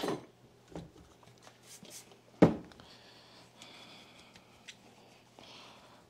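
Hard plastic vacuum cleaner parts being handled: a knock at the start, a small one about a second in, and a loud sharp clunk about two and a half seconds in, followed by faint rubbing.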